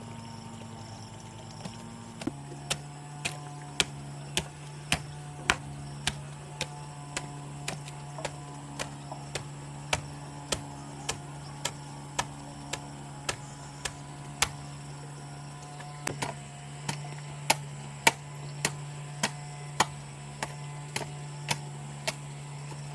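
Sharp knocks repeating about twice a second, some harder than others, over a steady hum. They start about two seconds in.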